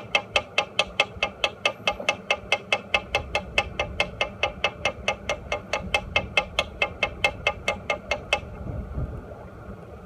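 Fishing reel clicking steadily as the line is wound in, about six clicks a second, stopping a little before the end.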